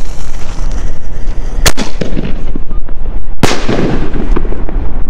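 Two loud bangs from 6-inch aerial firework shells, about two seconds apart, the second trailing off in a rumbling tail.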